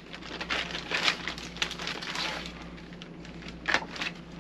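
Batteries being handled out of a blister pack and pressed into the slots of a plastic battery storage case: packaging rustling and small plastic clicks, with two sharper clicks near the end.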